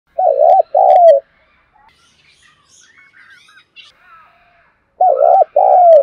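Spotted dove cooing loudly: a two-note coo near the start, then the same two-note phrase again about five seconds in. Faint chirps of small birds come in between.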